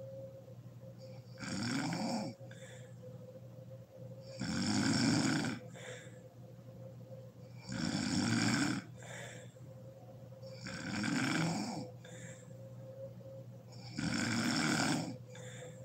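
A sleeping woman snoring, five loud snores spaced about three seconds apart, each followed by a shorter, quieter breath.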